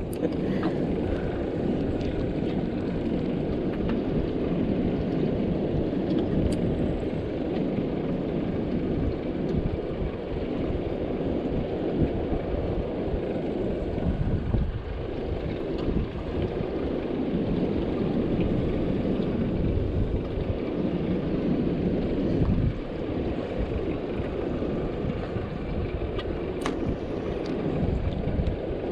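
Steady rumbling noise of a motorboat under way, with wind buffeting the microphone.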